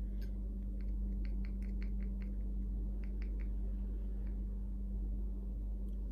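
Small spoon clicking lightly and irregularly against a small plastic cup as a sticky honey mixture is stirred, in runs of quick clicks, over a steady low electrical hum.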